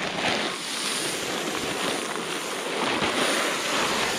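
Shelled corn pouring out of a bag onto leaf litter: a steady rushing hiss of falling kernels that starts suddenly.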